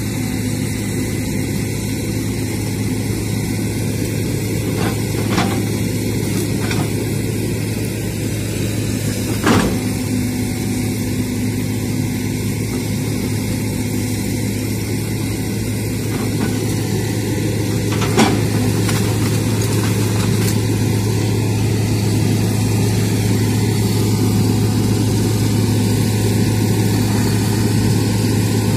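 Hydraulic excavator's diesel engine running steadily under working load while the bucket digs into soil and brush, with a few sharp knocks about 5, 10 and 18 seconds in.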